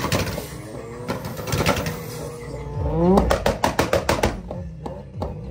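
Tuned car engine revving hard; about three seconds in it revs up and breaks into a rapid string of sharp exhaust bangs and pops, about five a second, as at a launch-control rev-limiter demo.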